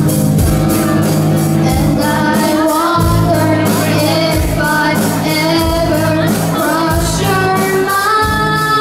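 A live rock band playing a song with female lead vocals over electric guitar, bass guitar and a steady drum beat, amplified in a hall.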